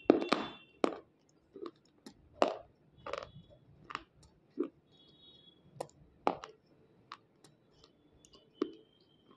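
Crisp crunching of white unshaped slate pencil pieces being chewed, in irregular sharp snaps about one or two a second.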